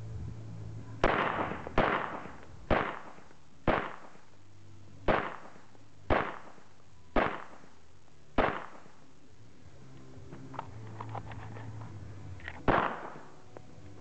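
Glock .45 ACP pistol shots: eight shots about a second apart, then a single shot about four seconds later, each with a short echo tail. A few faint ticks come just before the last shot.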